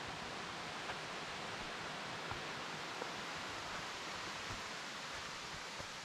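Steady rush of a nearby waterfall and creek, with a few faint footfalls on a dirt trail.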